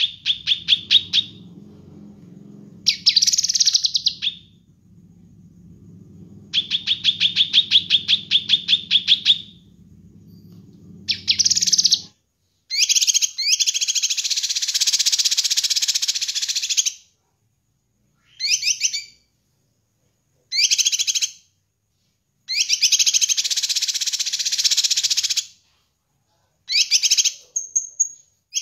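A cucak kinoi leafbird singing loud, high phrases: rapid trills of repeated notes at first, then longer dense warbling phrases broken by short pauses. A low hum sits under the first part and cuts off suddenly about twelve seconds in.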